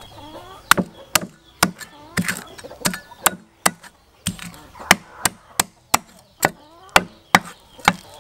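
A cleaver chopping a whole fish into pieces on a chopping block: about fifteen sharp knocks, roughly two a second, as the blade cuts through flesh and bone and hits the board.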